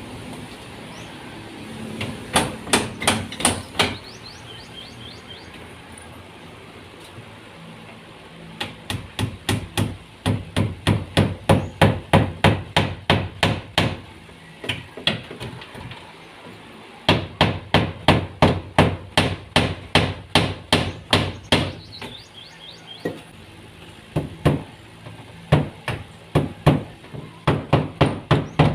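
Hammer blows in carpentry work, coming in runs of quick, even strikes at about three a second, broken by short pauses.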